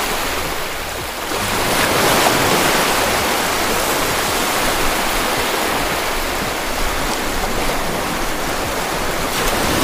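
Ocean surf breaking and washing up onto the sand: a continuous rush of waves and foam, swelling a little about a second and a half in.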